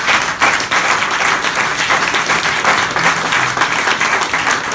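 A small group of people applauding, a dense run of quick hand claps.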